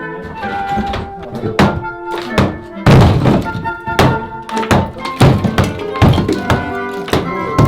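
Background music with held notes and a percussive beat of sharp strikes.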